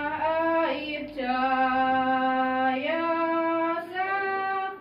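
Women's choir singing in unison, holding long notes that step from one pitch to the next, with a short break about a second in.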